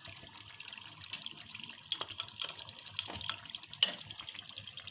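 Mutton karahi sizzling in a metal pot on high flame with yogurt just added, a steady crackling hiss. From about two seconds in, a spoon knocks and scrapes against the pot several times as the mixing starts.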